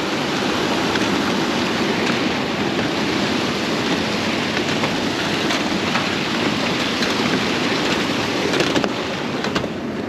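Steady rush of water pouring through a small dam under a footbridge, an even wash of sound with a few light knocks near the end.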